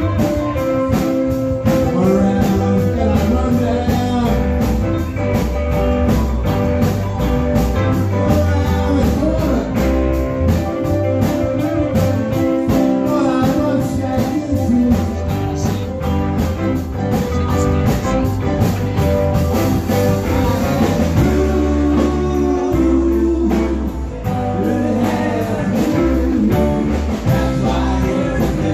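Live band playing with electric guitars, a drum kit keeping a steady beat, and keyboard, with a man singing over it.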